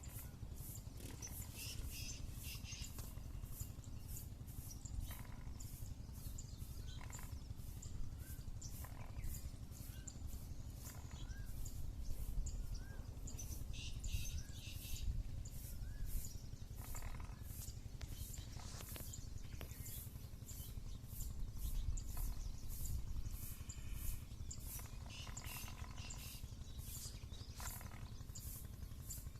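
Black cobra hissing in a few short breathy bursts, over outdoor background of small bird chirps, a rapid high ticking and a low rumble.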